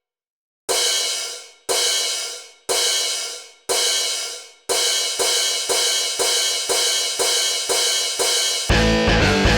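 Cymbal crashes ringing as a mini railroad-crossing alarm. Each crash rings out. There is one a second at first, then from about halfway a faster run of about two and a half a second. Near the end comes a louder crash with a deep low tone.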